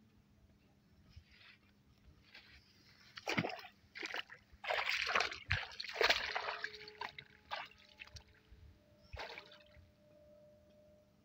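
Bare feet wading through shallow pond water: a run of splashing steps from about three to seven seconds in, and one more splash near nine seconds.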